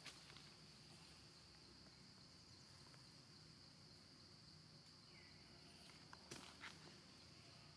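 Faint outdoor ambience: a steady high-pitched insect drone over a low background hum, with a couple of soft clicks about six seconds in.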